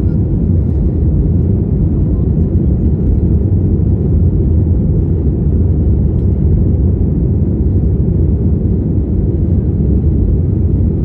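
Airliner taking off: a loud, steady low rumble of engines and airflow that holds even throughout.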